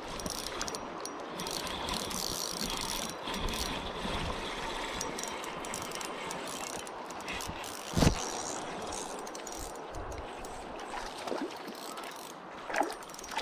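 Spinning reel cranked steadily as a hooked fish is reeled in, its gears whirring and clicking. A single thump about eight seconds in.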